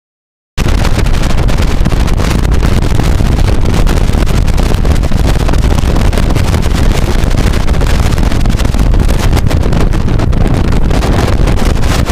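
Loud wind rumble on the microphone over the steady running noise of a motorboat under way on the lake. It cuts in abruptly about half a second in.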